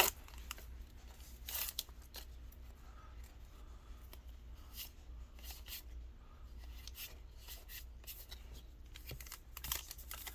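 Yu-Gi-Oh! trading cards being handled and flipped through, with scattered short soft slides and taps of card against card.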